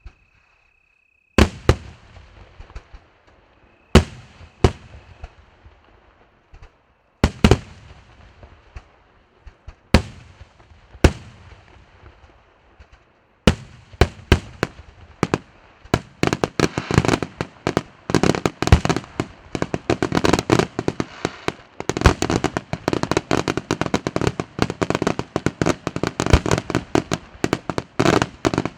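Aerial fireworks display: single loud shell bursts every second or two, each trailing off in a rumbling echo, then from about halfway a dense barrage of rapid bangs and crackling that carries on to the end.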